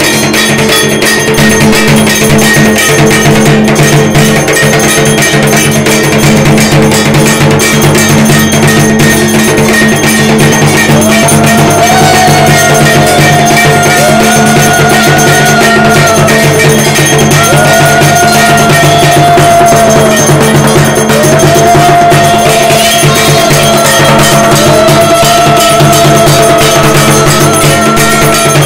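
Loud, fast puja percussion of drumming and clanging metal that accompanies the evening arati. About eleven seconds in, a high melodic line joins, repeating in short rising-and-falling phrases.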